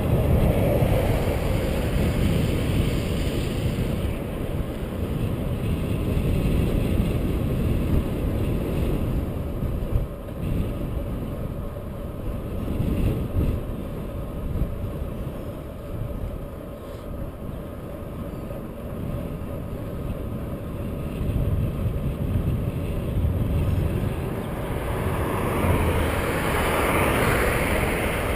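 Wind buffeting the microphone of a camera on a moving bicycle, a gusty low rumble. A swell of car tyre noise passes at the start, and another swell of road noise builds near the end.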